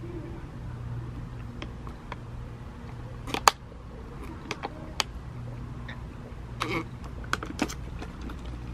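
Plastic drink bottle handled and drunk from: a handful of sharp clicks and crinkles, the loudest about three and a half seconds in, over a steady low hum.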